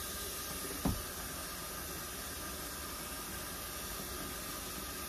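Hot water running from a kitchen faucet into a plastic mop bucket: a steady hiss. One short thump about a second in.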